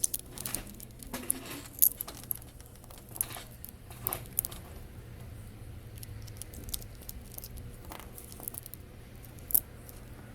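Small hard plastic clicks and light rattles from handling a small remote control on a workbench, with a few sharper clicks, over a steady low hum.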